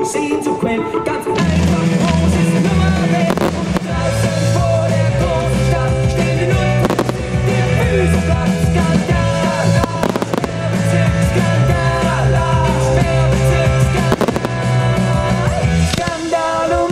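Loud rock-style music with a heavy bass line that comes in about a second and a half in, with a few fireworks bangs cutting through it.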